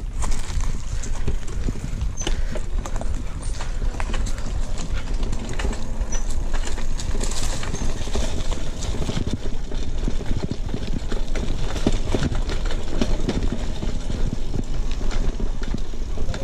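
Mountain bike riding over a bumpy dirt trail: a continuous stream of rattles and knocks from the bike and tyres over stones and dry leaves, over a low wind rumble.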